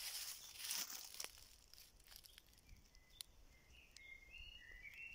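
Footsteps rustling through dry fallen leaves on the forest floor for about the first second, then stillness with faint short bird chirps from about three seconds in.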